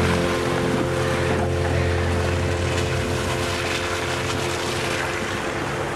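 Jeep Wrangler engine running at crawling speed as the vehicle rolls past, a steady low rumble that slowly fades.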